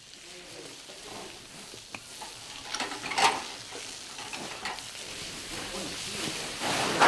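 Sacks of coffee cherries handled and emptied into a concrete hopper: rustling, a sharp knock about three seconds in, then a louder rushing pour of cherries near the end.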